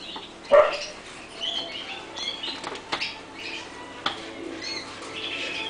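Many caged canaries chirping and calling in short twittering notes, with a few sharp clicks and one louder short sound about half a second in.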